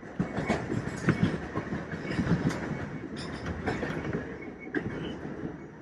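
New York City subway train (Q line) running on outdoor track, its steel wheels clacking and knocking over rail joints amid a rumble. The knocking is densest for the first few seconds and then eases off.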